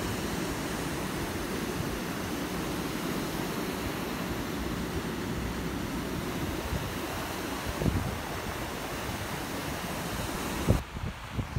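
Flooded stream in spate, a steady rush of fast floodwater mixed with wind on the microphone. A couple of knocks from handling; near the end the noise drops away sharply.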